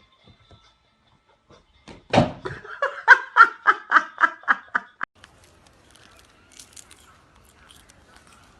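A person laughing: a burst about two seconds in, then a quick run of about a dozen 'ha' pulses over some three seconds that stops abruptly.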